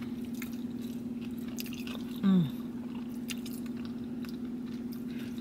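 A person chewing food, with soft mouth clicks, and a brief falling "mm" of enjoyment about two seconds in, which is the loudest sound. A steady low hum runs underneath.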